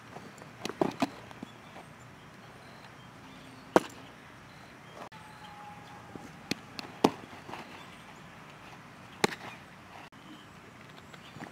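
Softballs smacking into a catcher's mitt: several sharp, separate pops a few seconds apart, with scuffling of the catcher's gear and feet in the dirt between them.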